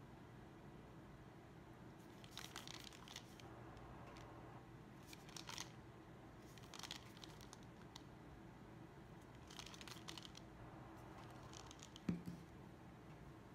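Faint handling noises of a supplement bottle being turned in the hand: brief soft rustles and scrapes every few seconds. About twelve seconds in there is a single louder knock as a jar is set down on a wooden table.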